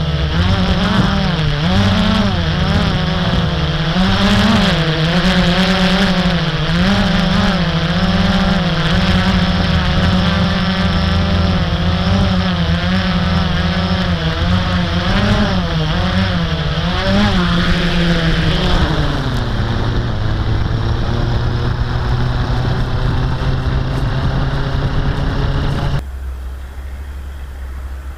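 Blade 350 QX quadcopter's brushless motors and propellers whining, the pitch wavering up and down as the throttle changes. Shortly after the midpoint the pitch glides down and holds steady, and a couple of seconds before the end the sound drops off sharply to a quieter low hum.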